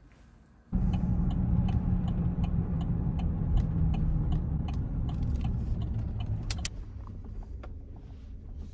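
Car driving, heard from inside the cabin: a steady low rumble that starts abruptly about a second in and eases off near the end, with a light regular ticking two or three times a second.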